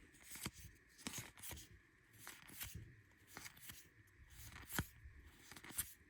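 Faint soft slides and ticks of trading cards being moved one behind another as they are looked through, with a sharper click about five seconds in.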